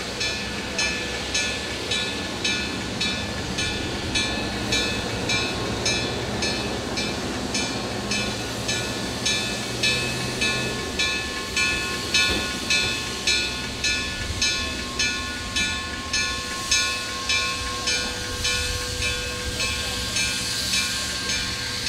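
Steam locomotive chuffing at a steady pace, about two exhaust beats a second, over a continuous hiss of steam.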